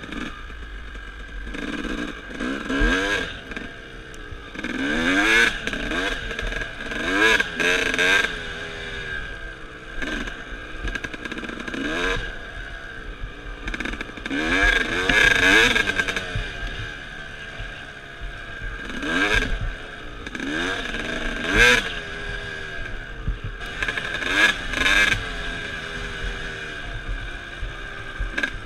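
Dirt bike engine being ridden, revving up and dropping back again and again as the throttle is opened and closed, its pitch climbing with each burst.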